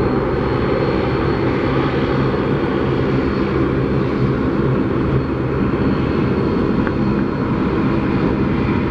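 Airbus A330-300 jetliner climbing out after takeoff, its two turbofan engines at takeoff thrust giving a loud, steady roar with a thin high whine on top.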